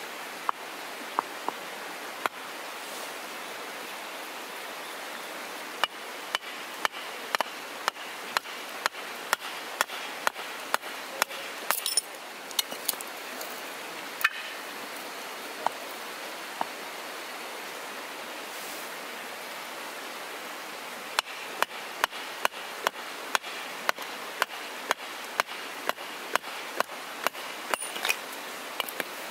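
Small red-headed hatchet chopping and splitting softwood kindling on a log stump: sharp wooden chops, about one to two a second, in two long runs with a pause of a few seconds between them. A steady hiss runs underneath.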